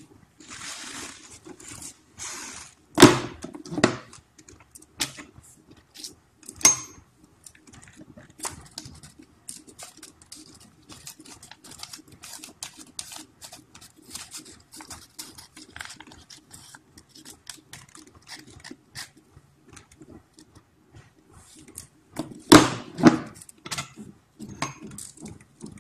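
Hand-lever graphic punch cutting printed paper for buttons: paper sliding into the cutter, sharp clunks as the lever is pressed down and the die cuts through, loudest about three seconds in and again near the end, with small clicks and rustles of the paper being handled in between.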